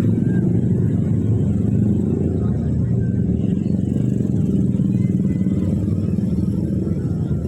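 A passing train making a loud, steady, heavy rumble.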